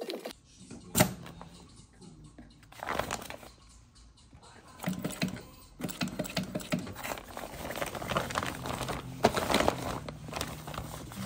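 Stiff laminated sailcloth crinkling as it is handled and fed under an industrial sewing machine, with a sharp click about a second in. From about halfway the machine starts stitching in short runs, a quick patter of stitches over a low motor hum.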